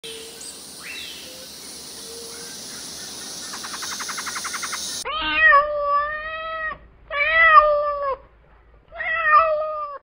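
A steady hiss, then about halfway through a domestic cat meowing three times in long drawn-out calls, the last one shorter.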